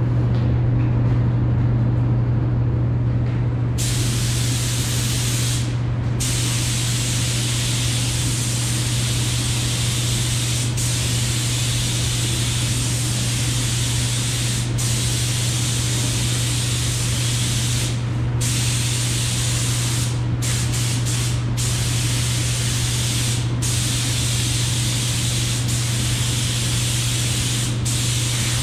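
Air-fed gravity-cup paint spray gun hissing as it sprays paint, starting about four seconds in and cutting out briefly several times as the trigger is let off between passes. A steady low hum runs underneath.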